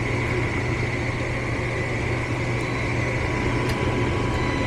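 Furnace running with a steady low hum and a fainter steady high whine above it.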